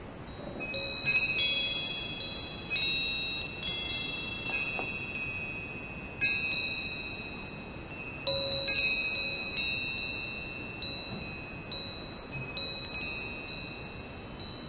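Chimes ringing, struck anew every second or two at irregular intervals. Their high, clear tones ring on and fade, over a soft hiss.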